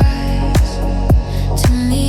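Electronic dance music: four kick-drum beats, a little under two a second, each dropping quickly in pitch, over sustained synth chords and bass.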